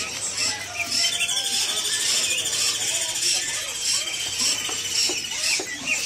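Many caged songbirds chirping and calling at once, with a fast high trill running from about a second in for several seconds.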